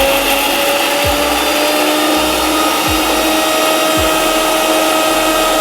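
Electric mixer grinder (mixie) running at full speed with a steady high whine, grinding fried dried chillies, shallots, ginger and curry leaves into a coarse chutney paste before the coconut goes in.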